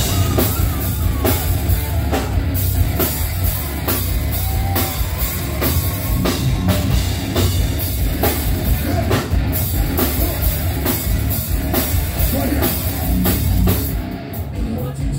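Live heavy metal band playing loud: electric guitars and bass over a drum kit keeping a steady, driving beat.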